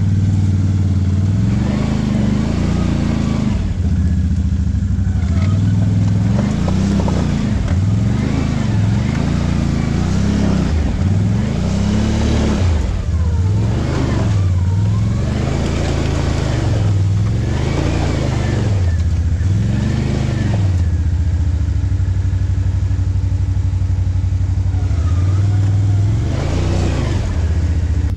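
Can-Am Outlander ATV engine revving up and easing off over and over, about every two seconds, then running steadier for a few seconds before one more rev near the end.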